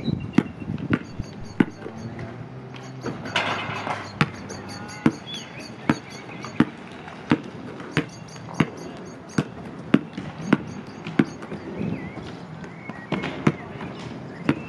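A basketball dribbled on an asphalt court, a sharp bounce about every two-thirds of a second in a steady rhythm.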